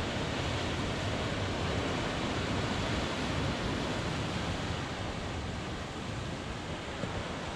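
Steady rushing noise of sea surf, even and without distinct wave breaks.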